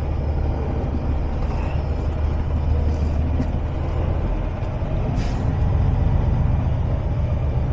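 Semi-truck diesel engine running at low speed, a steady low rumble, with a short hiss about five seconds in.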